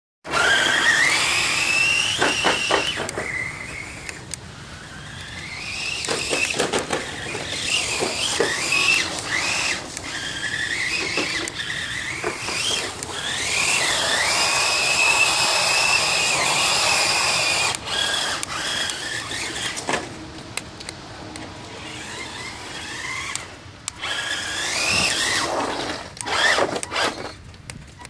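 Radio-controlled Kyosho Outrage truck's Titan 550 12-turn brushed electric motor and drivetrain whining, rising and falling in pitch again and again as the truck speeds up and slows down, over the hiss of its tyres on wet concrete. The whine drops out briefly a few times in the last third.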